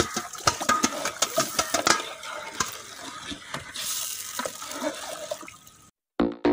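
Wet, freshly boiled rice and its water tipped from a perforated aluminium strainer into a large aluminium pot, splashing, with many sharp clicks and scrapes of metal on metal. The sound fades and cuts off just before the end.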